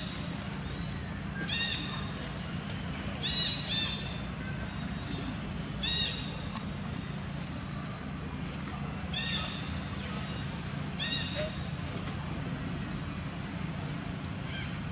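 Newborn long-tailed macaque calling: about six short, high-pitched squeaks, each rising and falling in pitch, at irregular intervals over a steady low hum.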